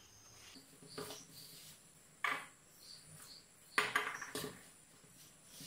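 A spoon stirring wheat flour and water in a plastic mixing bowl: soft scraping with a few sharp knocks of the spoon against the bowl, the loudest a little under four seconds in.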